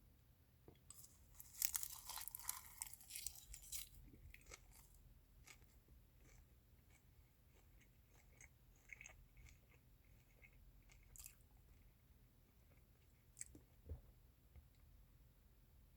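A person chewing food close to the microphone: a run of loud, crisp crunches for the first few seconds, then softer, scattered chewing and mouth clicks.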